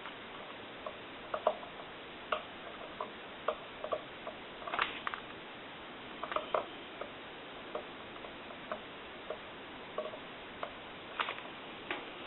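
Irregular light clicks and taps, about one a second, from work with a soldering gun on a telephone's circuit board as its bad solder joints are touched up.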